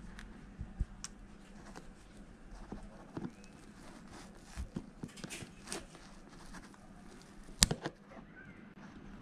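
Scattered light clicks and taps of hand work, with one sharp, much louder snap about seven and a half seconds in.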